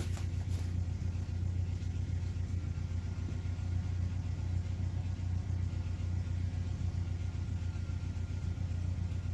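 Tractor engine idling, a steady low drone with no change in speed.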